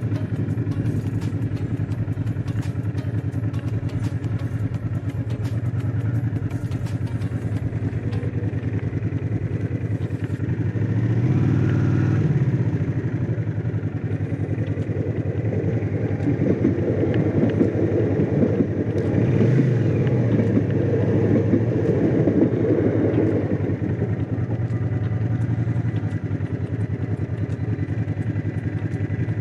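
Honda CX500's V-twin engine running as the motorcycle is ridden along, with wind and road noise. The engine note swells and drops back briefly twice, and is a little louder for several seconds in the second half.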